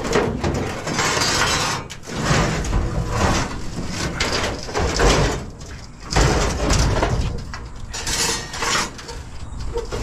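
Scrap metal being shifted and loaded: repeated scraping and clattering of metal pieces dragged and knocked together, in several bouts with short pauses.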